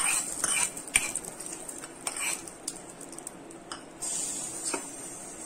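A metal spoon scraping and clinking against a small tempering pan as a mustard-seed and curry-leaf tempering is tipped into a steel bowl of chutney: scattered sharp clinks, the strongest about a second in.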